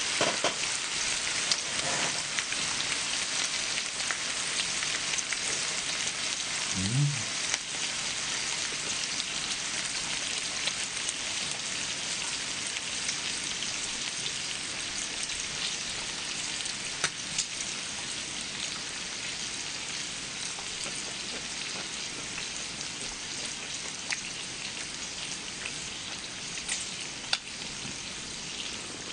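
Pork belly, pork neck and marinated pork and duck frying on a large flat griddle: a steady sizzle that eases slightly, with a few sharp clicks.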